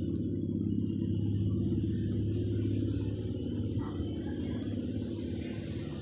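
Steady low machine rumble with a hum running under it. A couple of faint clicks a few seconds in come from hands handling electrical tape and headset wire.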